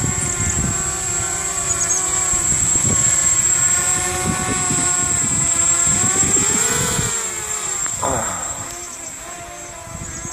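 Radio-controlled multirotor drone flying overhead, its electric motors and propellers whining in several pitched tones that rise and fall with the throttle, swelling around six to seven seconds in and then dropping sharply in pitch about eight seconds in. Gusty wind rumbles on the microphone throughout.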